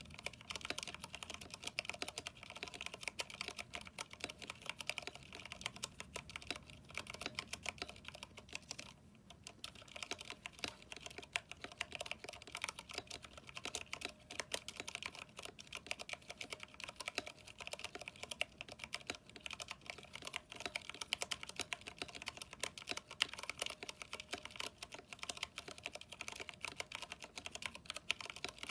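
Continuous fast typing on a Vortex 10th Anniversary Edition mechanical keyboard with Cherry MX Brown switches and NP PBT keycaps: a dense stream of key clacks, with a short pause about nine seconds in.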